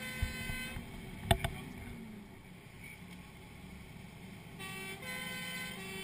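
Fire engine's two-tone siren heard from inside the crew cab, alternating between two pitches near the start and again from about five seconds in, over the steady drone of the moving truck. A sharp knock sounds about a second in.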